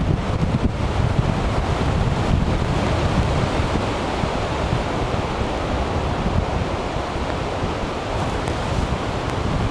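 Snowstorm wind blowing steadily against the microphone, a dense low rushing that eases slightly for a few seconds in the second half before picking up again.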